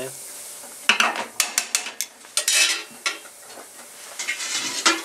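Short fideo noodles toasting in olive oil in a steel paella pan, with a light sizzle, while metal tongs stir and scrape them, giving a quick run of sharp clicks against the pan about a second in.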